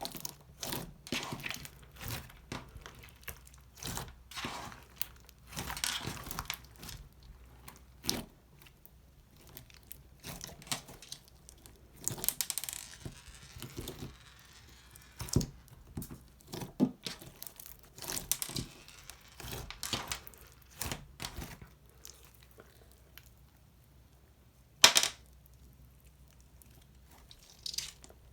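Slime being handled: sticky stretching and pulling with irregular clicks and crackles, a longer crackling stretch about halfway through, and one sharp, louder snap near the end.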